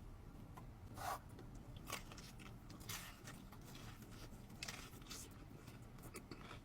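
Faint crunching of someone biting and chewing a fried chicken tender, with a few crisp bites about a second apart.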